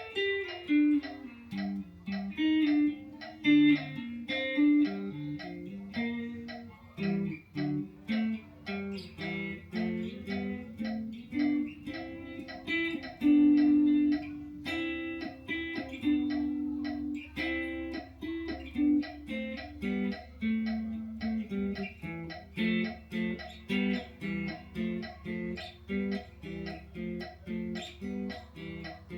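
Guitar played one note at a time in a steady melodic line, a passage practised slowly.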